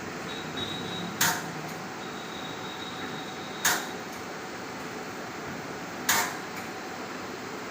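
Bottle washing machine running with a steady mechanical hum, broken by a sharp clack about every two and a half seconds, three times, as its mechanism cycles.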